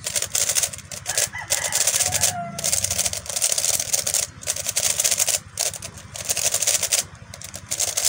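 A plastic 3x3 puzzle cube being turned quickly by hand, its layers clicking and rattling in fast runs broken by short pauses.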